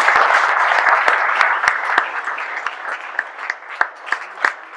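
Audience applauding: a full round of clapping at first that thins out to a few scattered claps in the second half.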